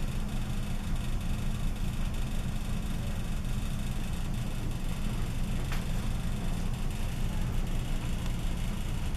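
Steady low background hum with a faint hiss, like a machine or ventilation running, and one faint click about six seconds in.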